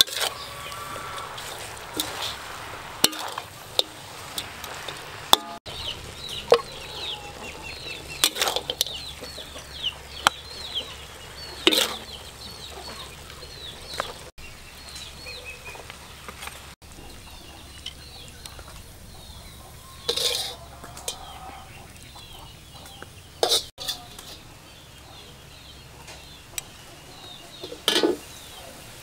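A metal spatula scrapes and knocks in a wok, then utensils clink on a serving plate, with a sharp knock every few seconds. Chickens cluck in the background, with many short high chirps throughout.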